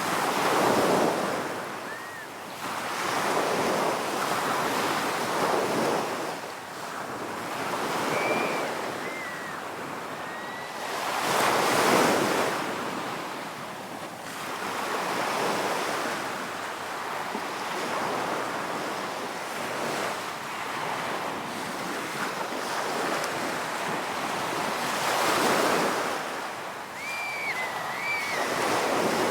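Ocean surf: waves breaking and washing up the shore in repeated swells of hiss, each rising and fading over a few seconds, the biggest about twelve seconds in and again a few seconds before the end.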